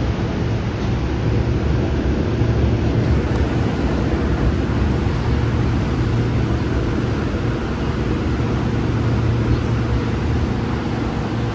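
Ex-Tokyo Metro 03 series electric train running on the Jōmō Electric Railway: a steady low rumble with a faint hum.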